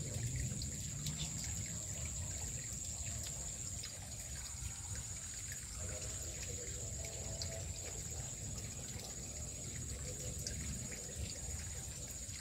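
Shallow stream trickling over rocks, with a steady high-pitched hum throughout.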